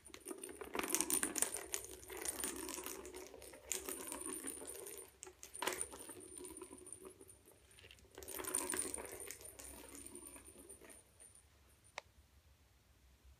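A ball rattling and clattering as a cat bats it around the plastic track of a circular ball-track toy, in bursts of a few seconds. There is a sharp knock near the middle and a single click near the end.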